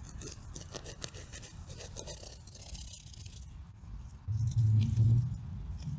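Dense, dry roots of a root-bound cat palm's root ball crackling and scraping as gloved hands tear and pull them apart. About four seconds in, a louder low rumble lasts about a second.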